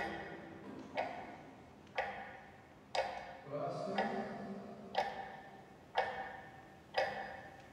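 A clock ticking steadily, one sharp tick a second, each tick ringing briefly.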